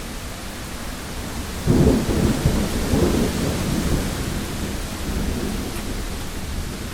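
Thunderstorm: steady rain and wind with a clap of thunder that breaks suddenly a little under two seconds in and rumbles for a few seconds before fading back under the rain.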